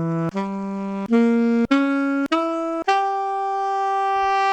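Sampled saxophone from a SoundFont being auditioned: about six separate held notes rising step by step, each cut off cleanly, with the last and highest note held for about two seconds.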